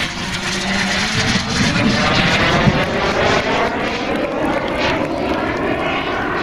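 Giant-scale radio-controlled Tornado jet's turbine engine running as the model flies past overhead: a steady loud rush whose tone sweeps up and down with the pass.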